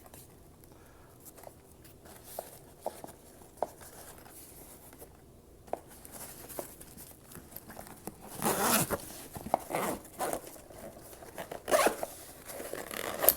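Zipper on a headphone carrying case being pulled open in a few short rasping runs, the longest about two thirds of the way in and another near the end, after scattered small clicks and handling knocks.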